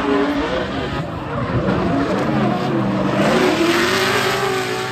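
Car engines revving, their pitch rising and falling repeatedly, with tire skidding noise, as at a drift session.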